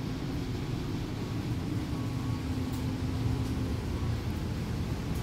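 Steady low machine rumble and hum, with a faint steady tone over it, as of the machinery running in a laundry room.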